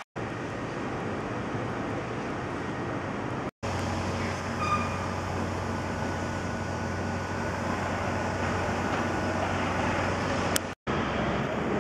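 Street traffic noise with a steady low engine hum, broken twice by abrupt cuts to silence where the shots change.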